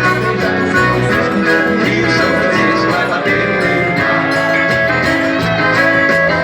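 Live forró band music: an accordion carries the tune over a steady bass line, with percussion ticking in a regular rhythm.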